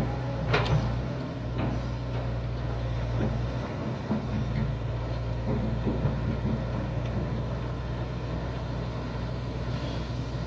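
Excavator's diesel engine running steadily under load, with a few short knocks in the first two seconds.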